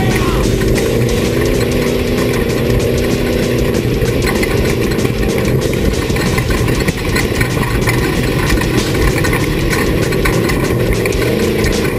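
Off-road race vehicle's engine running steadily, with a continual rattle of short knocks and clicks over it.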